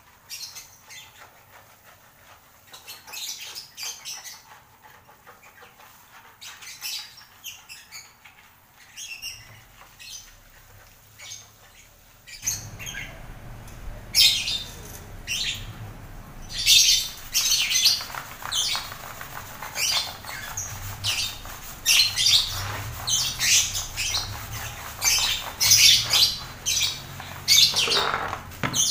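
Lovebirds chirping and squawking in short, shrill, rapid calls, which grow louder and denser about halfway through, when a steady low rushing noise also joins in.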